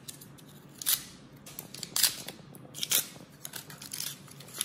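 Foil butter wrapper crinkling as it is peeled off a cut piece of butter. There are sharp crinkles about a second apart, then a quicker run of smaller ones near the end.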